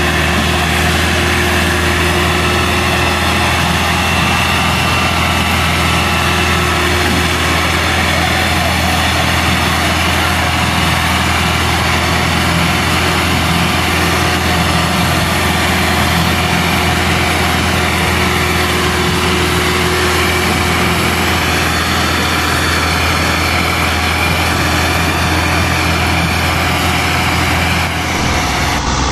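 Massey Ferguson 375 tractor's four-cylinder diesel engine running loudly at a steady, even speed.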